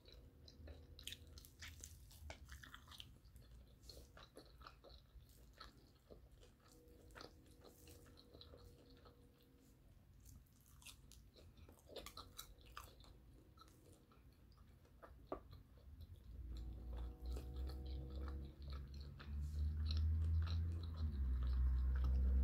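Chewing and biting of crunchy breaded fried chicken, with small crisp crackles and mouth clicks scattered throughout. From about three-quarters of the way in, a low rumble builds and becomes the loudest sound near the end.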